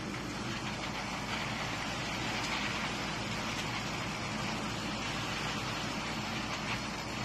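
Steady background noise: an even low rumble with hiss, unchanging throughout.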